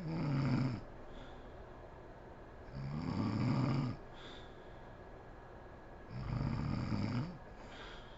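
A sleeping woman snoring: three deep snores about three seconds apart, each lasting about a second and followed by a short, softer breath.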